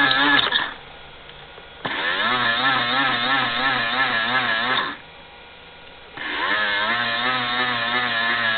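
Toy plastic washing machine's small electric motor whirring in bursts of about three seconds, each starting with a rising whine and cutting off, with pauses of about a second between. Its pitch wobbles as the drum turns, and it spins in one direction only.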